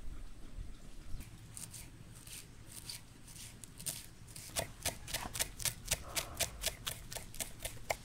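Knife chopping fresh herbs on a wooden cutting board: soft, irregular cuts at first, then from about halfway a quick, even run of sharp knocks, about four to five a second.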